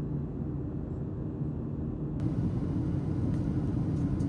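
Airliner cabin noise: the steady rumble of the engines and airflow with a low hum, and a brighter hiss that comes in suddenly about two seconds in.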